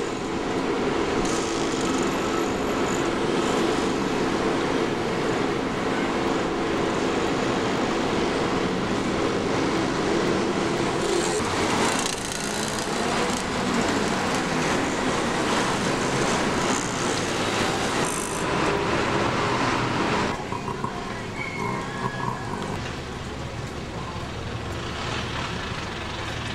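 Heavy city road traffic: many cars, buses and motorbikes running together as a steady noise, which eases a little about twenty seconds in.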